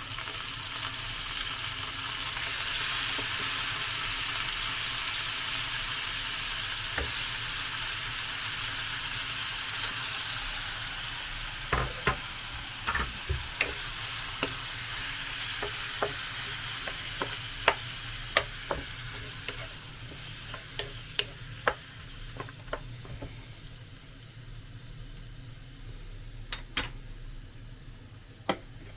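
Chicken pieces sizzling and frying in hot oil in a pan, just added. The sizzle swells over the first few seconds, then slowly dies down. From about twelve seconds in, a utensil clicks and knocks against the pan as the chicken is stirred.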